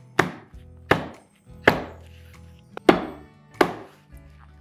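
A loaf pan filled with cake batter is tapped down on a wooden counter five times, about every three quarters of a second, each a dull knock. The tapping drives big air bubbles out of the batter before baking. Soft background music plays underneath.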